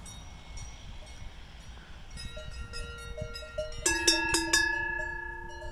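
Large bells on the leather collars of grazing cows clanking as the cows move their heads. A few faint clinks come first. Then, about two-thirds of the way through, four or five loud clangs follow close together, each left ringing.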